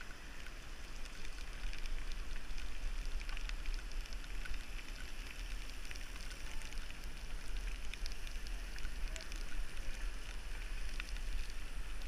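Rain on a bicycle-mounted action camera: scattered drops ticking on the camera over a steady low rumble as the bike rides along the wet road.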